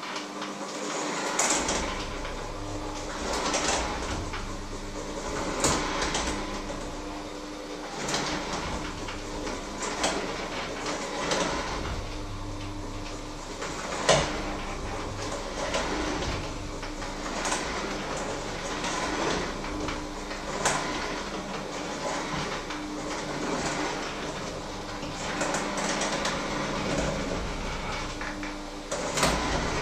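Electric hand mixer beating in a metal bowl: a steady motor whirr with repeated clicks and clatters of the beaters against the bowl.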